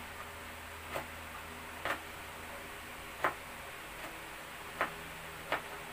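Kitchen knife cutting food by hand, its blade knocking down onto the board about five times at irregular intervals roughly a second apart, over a faint low hum.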